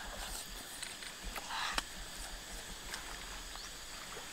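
Quiet outdoor ambience with a faint steady high insect drone, broken by a few light clicks and soft handling and eating noises as cooked mussel shells are picked over.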